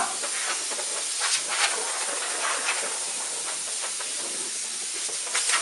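A steady rush of air hissing from a hose worked around inside a cardboard box, with light ticks and rustles of loose polystyrene foam bits.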